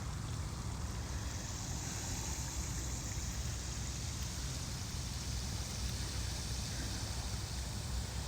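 Rain runoff flowing down a desert wash: a steady rush of moving water under an unsteady low rumble.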